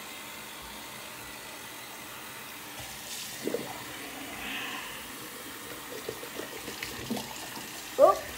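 Bathroom sink faucet running, a steady stream of water splashing into the basin and down the drain. Near the end comes a short, loud, pitched sound that rises and falls.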